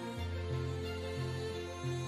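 Soft instrumental background music, with a low bass line stepping from note to note about every half second.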